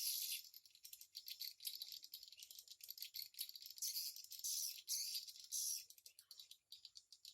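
Swiftlets twittering: a dense, high-pitched chatter of rapid chirps and clicks in overlapping bouts, thinning out just before the end.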